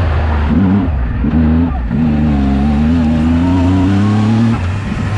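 Turbocharged Yamaha YXZ1000R's three-cylinder engine under hard throttle, heard from the cockpit. It revs up and dips twice early on, climbs steadily for a couple of seconds, then drops off sharply near the end as the throttle is lifted.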